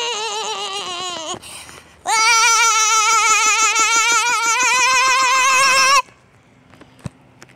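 A young child's high, wavering yell, a pretend attack cry: the first trails off about a second and a half in, and the second is held for about four seconds before stopping abruptly.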